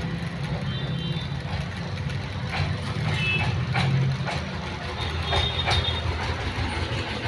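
A steady low engine-like rumble, with a few sharp clicks and short high chirps about one, three and five and a half seconds in.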